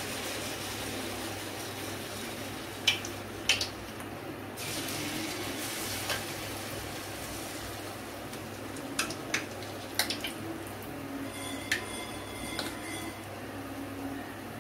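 Banana appam batter frying in hot sunflower oil in a metal kadai: a steady sizzle, with a few sharp clinks of a metal spoon against the pan.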